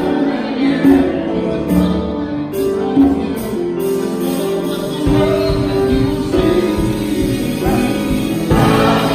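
A church choir singing a gospel song with a male lead vocalist on a microphone. A deeper backing joins about five seconds in, and the sound swells near the end.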